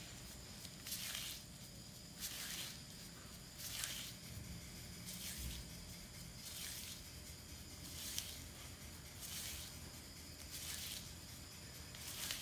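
Tobacco in a banana-leaf wrapper being rolled between the palms and fingers: a soft rustling hiss of leaf rubbing against skin, repeating about every second and a half.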